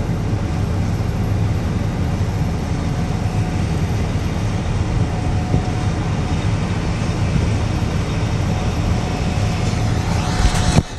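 Combine's engine running steadily with a low rumble, with a brief rising swish just before the sound cuts off.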